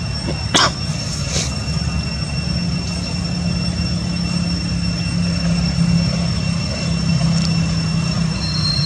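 Steady outdoor drone: two even, high-pitched tones over a low hum. A short sharp sound about half a second in is the loudest moment, with a weaker one about a second later.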